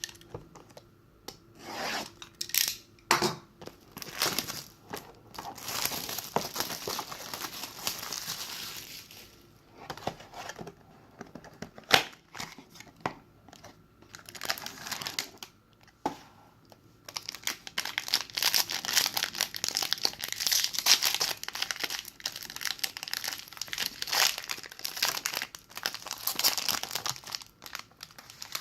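Plastic wrapping on a trading-card box and pack being torn open and crinkled by hand, with scattered sharp clicks and taps from handling the box. The crinkling comes in two long stretches, the second one denser and running through the last ten seconds or so.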